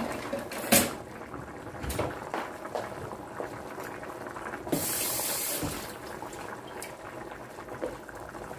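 Pot of tinolang manok (chicken soup) boiling on the stove, a steady bubbling with scattered pops. A sharp click comes just under a second in, and a hiss of about a second sounds near the middle.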